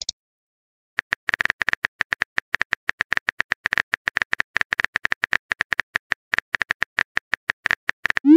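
Rapid keyboard-typing clicks, several a second, starting about a second in, from a chat app's typing sound effect as a message is typed out. A short rising swoop starts at the very end.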